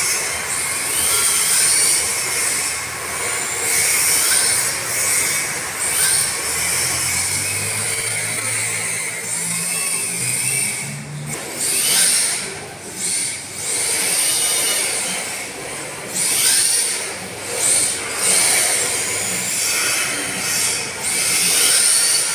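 Electric RC drift cars sliding on a polished tile floor: the tyres hiss and squeal on the smooth surface while the electric motors whine up and down in pitch with each burst of throttle.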